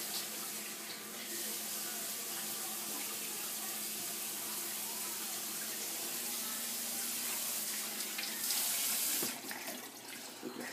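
Kitchen faucet running steadily into the sink. It gets louder briefly and is shut off about nine seconds in.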